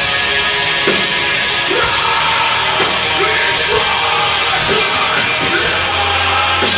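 A heavy rock band playing loud, with a yelled vocal line coming in about two seconds in.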